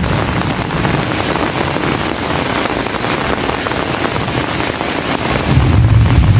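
Heavy rain falling in a steady, dense hiss. A low rumble swells up underneath near the end.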